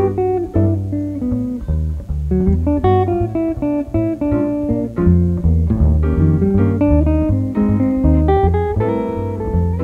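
Live jazz trio of guitar, keyboard and upright double bass playing, with plucked guitar notes over a steady line of low bass notes.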